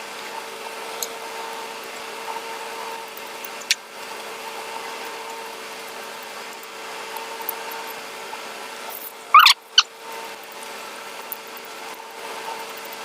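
Mouth sounds of eating curry and rice: a few faint wet clicks, then a brief loud squeaky slurp about nine and a half seconds in, over a steady background hum.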